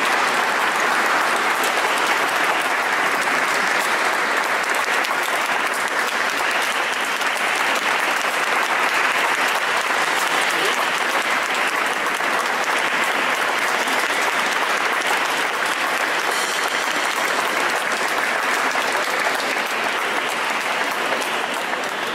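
Audience applauding, a dense steady clapping that eases off near the end.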